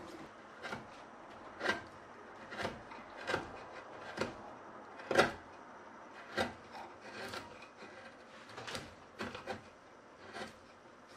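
Hand carving gouge cutting into a charred wooden board, about a dozen short scraping cuts roughly one a second, each lifting a shaving; the loudest comes about five seconds in.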